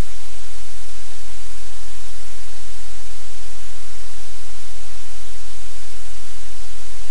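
Loud, steady static hiss with a low hum underneath: electronic noise on the audio feed.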